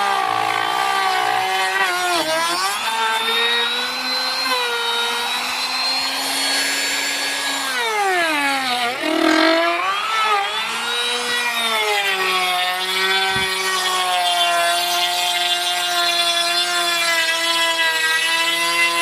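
Electric wood router running at high speed while cutting a design into a wooden window frame: a steady whine whose pitch sags and recovers as the bit bites into the wood, dropping deepest about eight to nine seconds in.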